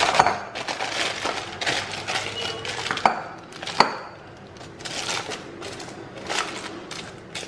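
Crumpled parchment paper crinkling and crackling as it is pressed by hand into a glass bowl, with two sharper clicks about three and four seconds in, then softer rustling.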